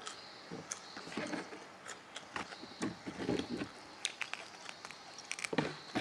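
Eating by hand: irregular chewing and mouth sounds, with small scattered clicks and rustles of fingers in rice on the plate.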